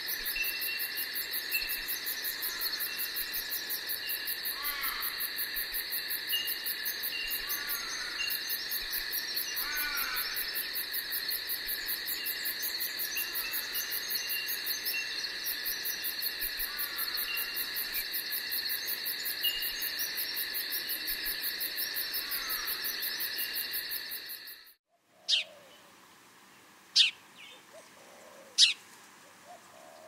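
Outdoor bird and insect chorus: a steady high insect drone with fast pulsing at the top, over which short bird calls repeat every second or two. The chorus cuts off suddenly about 24 seconds in, and a few sharp, separate bird chirps follow.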